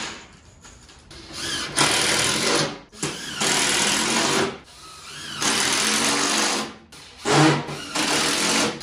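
Cordless drill driving 1 5/8-inch screws into a 3/8-inch plywood sheet, four screws in a row, each run lasting about a second and a half with a short pause between.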